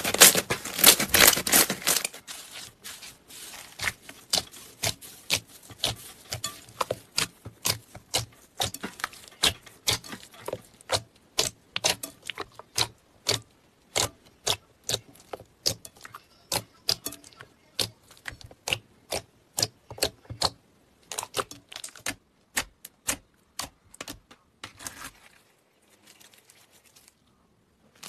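Hands kneading and poking slime, making sharp clicks and pops as trapped air is squeezed out, irregular, about one or two a second. The first two seconds hold a denser run of crackling clicks, and the clicks die away a few seconds before the end.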